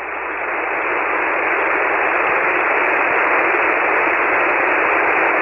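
Static hiss from a ham radio receiver tuned to an open 40-metre single-sideband frequency (7.188 MHz), with no station transmitting. The hiss is narrow and telephone-like and swells up over the first two seconds, then holds steady.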